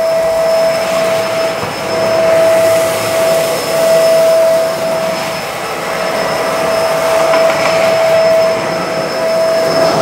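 Bissell MultiClean Allergen Lift-Off Pet upright vacuum running on a hard floor with its brush roller switched off: steady rushing suction with a constant motor whine. The loudness swells and dips a little as it is pushed back and forth.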